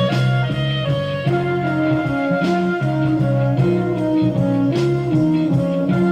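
Instrumental passage of a slow soul ballad with no singing, sustained notes moving from chord to chord.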